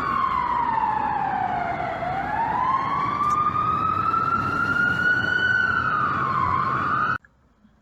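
Wailing emergency warning siren: one tone slides down, then slowly climbs and wavers up and down again before cutting off abruptly near the end.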